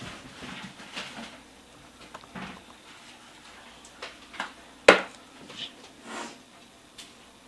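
Faint scuffs and clicks, with one sharp knock about five seconds in.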